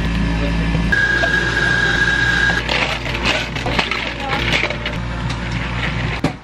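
Ice cubes scooped into plastic cups, clattering and crackling, over a steady low machine hum. Before the clatter, a steady high tone sounds for about a second and a half.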